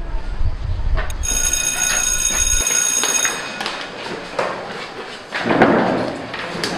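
A high-pitched electric bell rings steadily for about two seconds, starting about a second in. After it, students bustle in a classroom, with thumps and voices growing louder near the end.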